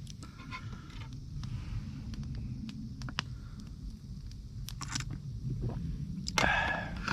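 Eating utensils scraping and clicking against a cooking pot, with one louder scrape about six and a half seconds in.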